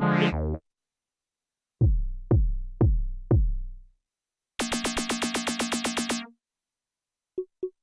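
Korg Minilogue XD four-voice analogue synthesizer sounding factory presets one after another. Four deep decaying notes, each with a quick downward pitch drop like a kick drum, are followed by a bright note pulsing about nine times a second for a second and a half, then short blips near the end.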